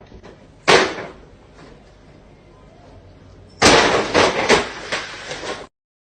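A single sharp crack about a second in. Then a loud stretch of crinkling and scraping with several sharp knocks: a paper bag with a cat inside skidding across a tile floor. It cuts off suddenly near the end.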